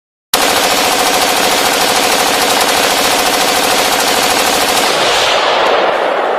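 Intro sound effect: a loud, steady rapid-fire rattle of very fast, even pulses over a buzzing pitch. It starts suddenly just after a moment of silence, and its hiss thins out near the end.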